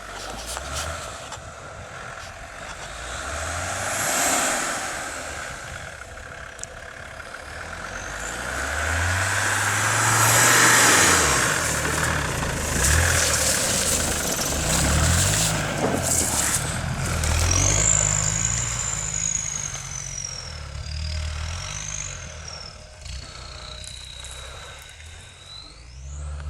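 Off-road 4x4 engine revving up and down repeatedly as it works through snow and mud, with a loud rushing noise swelling to a peak about ten seconds in. Near the end a thin high whistling tone glides down and back up.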